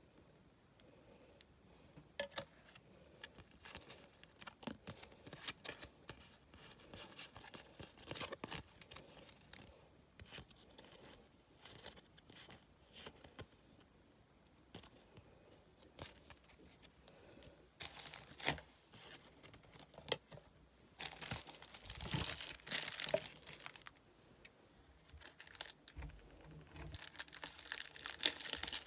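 Football trading card packets being torn open and crinkled, with cards handled and shuffled: scattered small clicks and rustles, and longer bouts of crinkling about two-thirds of the way through and again near the end.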